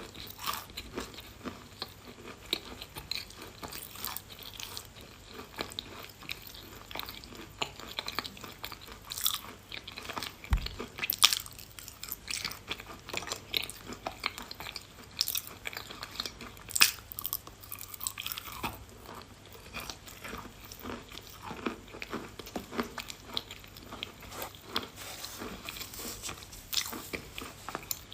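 Close-up biting and chewing of pieces of edible chalk, with many irregular crunches and crumbling grinds between the teeth.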